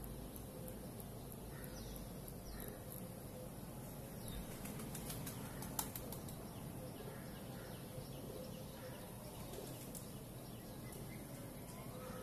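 Faint, scattered bird chirps from outside over a steady background hiss, with a few soft clicks.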